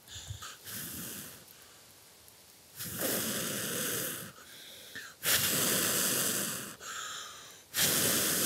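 Long breaths blown onto a glowing tinder-fungus ember, three strong blows of about a second and a half each, with a fainter one shortly after the start. They feed air to the ember so it takes hold and glows brighter.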